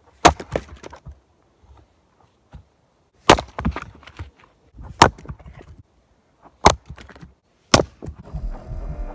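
Splitting maul chopping into a log: five sharp wooden strikes a second or more apart, some followed by smaller knocks. A steady hum comes in near the end.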